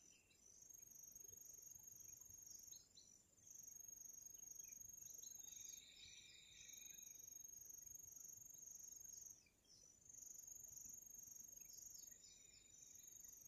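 Faint, steady, high-pitched trill of insects at dusk, breaking off briefly twice, with a few faint short chirps over it.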